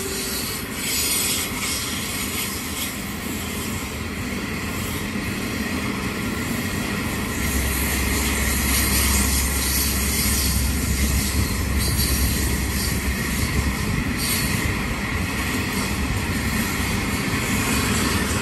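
Freight train passing close by, its wagon wheels running on the rails with high-pitched wheel noise. A deeper low rumble swells from about eight to thirteen seconds in.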